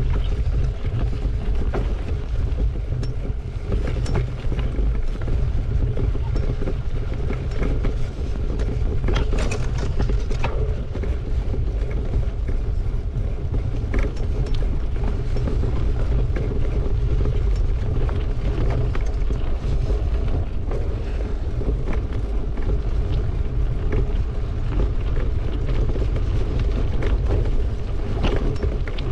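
Mountain bike riding over a bumpy grass trail, heard through an action camera hard-mounted on the handlebars: a steady heavy rumble of wind and frame vibration on the microphone, with frequent sharp knocks and rattles as the bike jolts over bumps.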